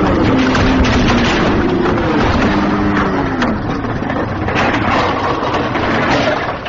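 Loud, steady rushing noise on the camera microphone as the camera is moved around, with two long cries in the first few seconds that each rise and then fall in pitch.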